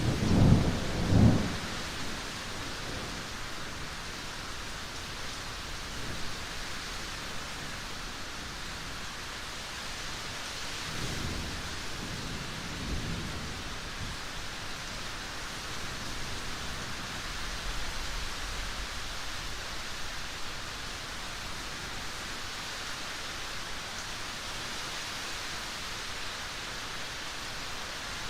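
Steady rain hiss with rolls of thunder: a loud low rumble in the first second or so, and a softer rumble about eleven seconds in.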